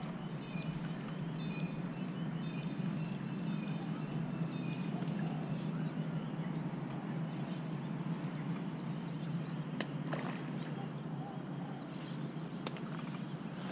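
Birds chirping over a steady low hum, with a few light clicks later on.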